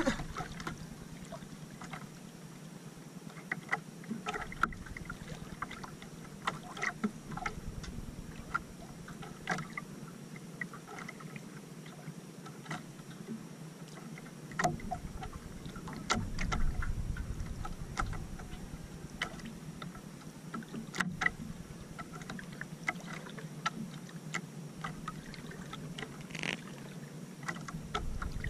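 Small waves lapping against the hull of an outrigger canoe, with scattered light clicks and knocks and an occasional low rumble.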